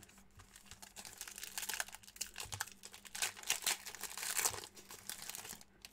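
Trading-card pack wrapper being crinkled and torn open by hand: a run of irregular crackles, busiest from about three to four and a half seconds in.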